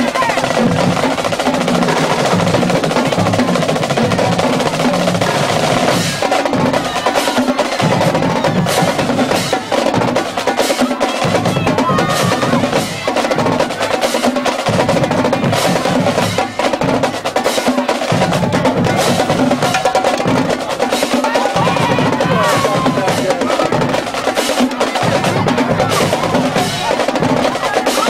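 Marching band drumline playing a street cadence: rapid snare drum strokes over bass drum hits in a steady, unbroken rhythm.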